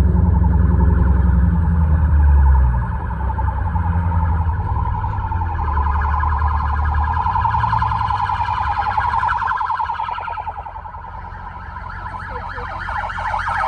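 Police siren wailing with a fast warble, heard from inside a car. It swells about halfway through, fades briefly, then grows loud again near the end as the police car comes up close. A deep low rumble lies under the first half.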